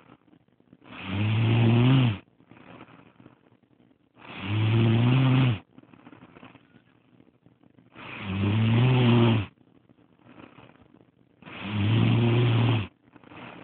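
A woman snoring, four long, low, rattling snores about every three and a half seconds, with fainter breathing in between.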